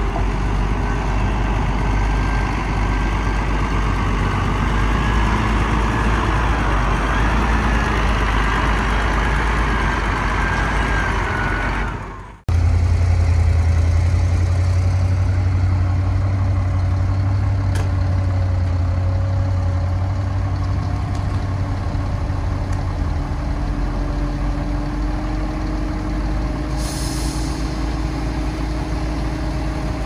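Heavy diesel engines of earthmoving machines running steadily. About twelve seconds in, an abrupt cut switches to a lower, steadier engine hum. A short hiss comes near the end.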